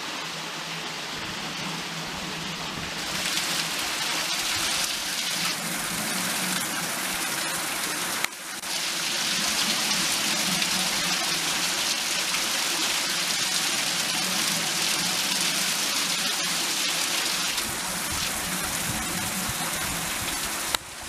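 Water splashing and pouring through a turning wooden waterwheel and its flume, a steady rush that grows louder about three seconds in and again after a short break near eight seconds.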